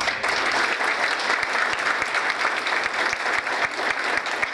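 An audience applauding, many hands clapping in a dense, steady patter.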